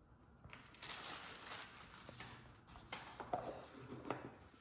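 Rustling and a few light clicks and knocks as items and packaging are handled on a countertop.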